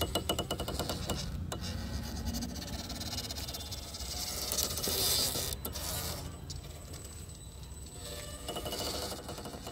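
Ola S1 Pro Gen 2 electric scooter's toothed rear drive belt ticking rapidly as the scooter is walked along, strongest at first and again near the end. This is the persistent belt noise the owner complains of, which the service centre called normal.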